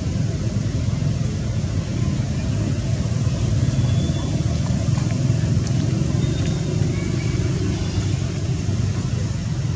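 Steady low rumble of outdoor background noise, with a few faint, short high chirps.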